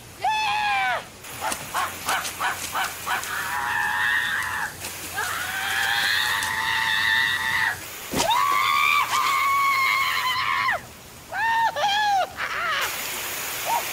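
A person's high-pitched whooping cries, repeated several times, with sprinkler spray hissing and ticking between them.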